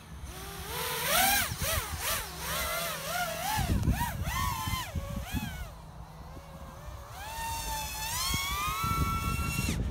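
FPV racing quadcopter's brushless motors whining, the pitch swooping rapidly up and down with the throttle as it takes off and flies through the gates, then a long steady rising whine as it climbs, cutting off suddenly near the end.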